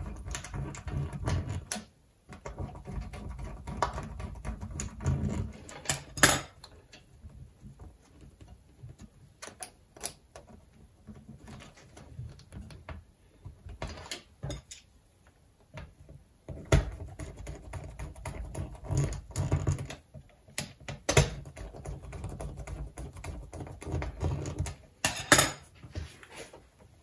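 Irregular clicks and taps of metal coat-hanger wire rods and a plastic strip connector being handled and fitted together on a wooden worktop, with low rubbing between the clicks.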